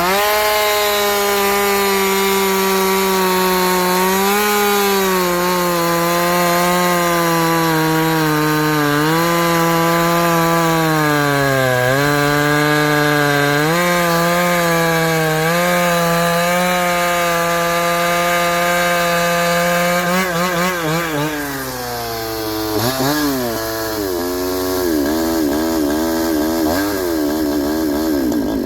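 Chinese two-stroke chainsaw at full throttle, cutting into ironbark hardwood. Its pitch dips several times as the chain bogs down in the hard wood. About twenty seconds in the revs waver and fall away, and the engine settles into an uneven, fluttering low-speed run.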